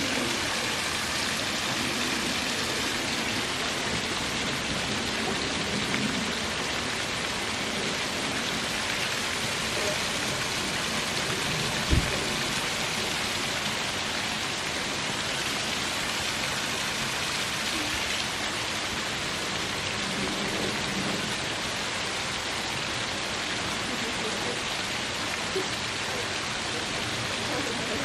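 Small waterfall splashing over rocks: a steady, even rushing hiss of falling water. A single short low thump stands out about halfway through.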